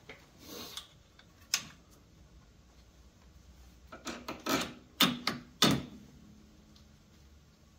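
Sharp metallic clicks and clanks at uneven spacing, a couple early and a louder cluster from about four to six seconds in, some leaving a short ring: hand tools and steel parts knocking together as a tie rod end is fitted back into a UTV's steering knuckle.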